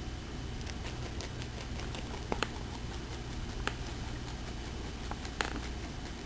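Angora rabbit chewing parsley: a run of small, irregular crunching clicks, with a few louder ones about two and a half, three and a half and five and a half seconds in.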